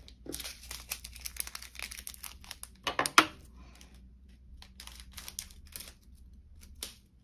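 Small plastic drill bag crinkling and rustling, mixed with light clicks of small plastic storage pots and a drill tray being handled, with one sharp click about three seconds in.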